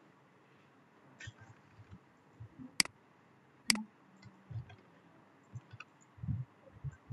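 Computer mouse clicking: two sharp clicks about a second apart, with a few fainter ticks and soft knocks around them.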